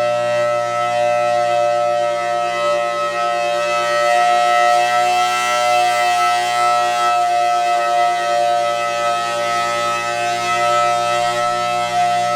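Federal Signal Thunderbolt 1000T outdoor warning siren sounding a loud, steady full-alert tone. The tone is still a little 'sick', a bit worse than just after the siren was last worked on.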